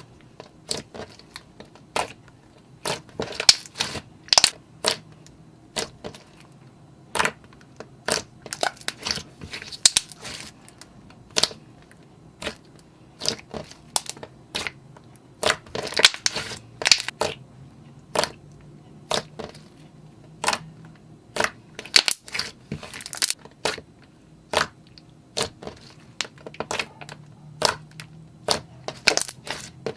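Slime being squished and pressed by hand, giving irregular sticky pops and crackles, in quick clusters at times.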